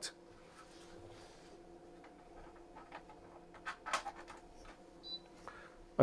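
Faint rustling and clicks of the mains plug being pushed in. About five seconds in, the Meaco Deluxe 202 humidifier gives one short, high electronic bleep, signalling that it has power.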